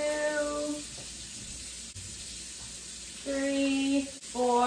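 Water pouring from a measuring cup into a slow cooker crock, a steady splashing rush for about two seconds in the middle. A woman's voice holds short level notes just before and near the end.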